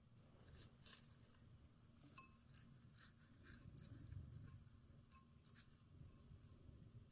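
Faint, soft rustling and light ticks of cut garlic chives being dropped by hand into a ceramic bowl of rice, over a low steady room hum.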